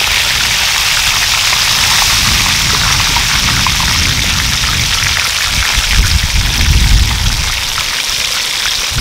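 Hot oil sizzling and bubbling steadily around a whole chicken deep-frying in a cast-iron pot-lid griddle (sotttukkeong). A low rumble swells underneath about six seconds in.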